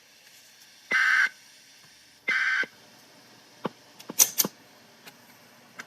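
Emergency Alert System SAME digital data bursts, the short buzzy end-of-message code sent three times about a second apart, which marks the close of a weather-radio test broadcast: the end of one burst, then two more. A few sharp clicks follow near the end.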